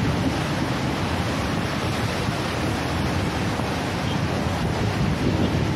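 Rough, churning sea water rushing in a strong current, with steady wind buffeting the microphone.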